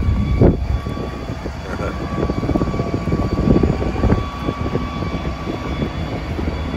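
Engines of a group of airplanes flying over in formation, a steady drone over a low rumble.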